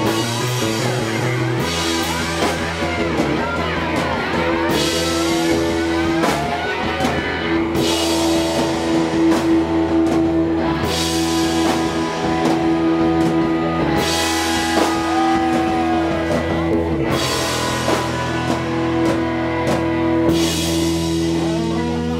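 Live rock band playing electric guitar, bass guitar and drum kit, loud and steady, with sustained and bending guitar notes over the drums.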